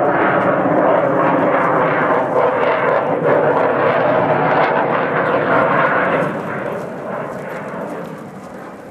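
Loud jet noise of an F-16 fighter flying overhead. It holds steady for about six seconds, then fades over the last three as the jet flies off.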